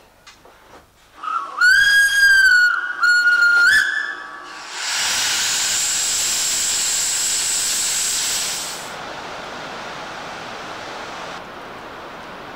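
Steam locomotive whistle blown twice, two short blasts about a second long, then a loud steady hiss of steam blowing out beside the locomotive's cylinders for about four seconds. The hiss drops to a quieter steady rushing noise about two-thirds of the way through.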